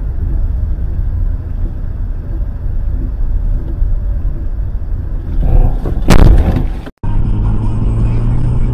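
Steady low road and engine rumble inside a moving car, then about six seconds in a loud, sudden impact: a vehicle collision. After an abrupt cut, a steady low drone of another car's engine and road noise.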